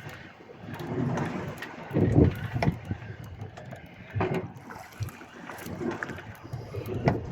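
A boat rocking at sea: irregular low sloshing and thuds of water against the hull, with wind on the microphone and scattered knocks, the loudest surge about two seconds in.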